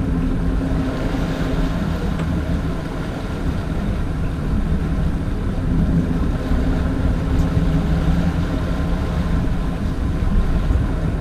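Sportfishing boat's inboard engines running steadily, a low drone with a couple of steady tones, over the hiss of churning water and wind.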